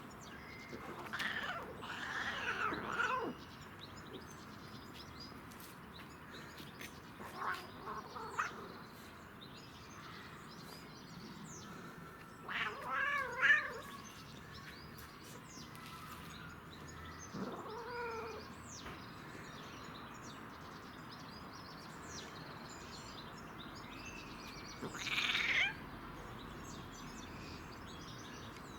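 Domestic cat on catnip making odd, wavering meows and yowls in about five short bouts, the loudest a warbling call about halfway through. Faint bird chirps sound in the background.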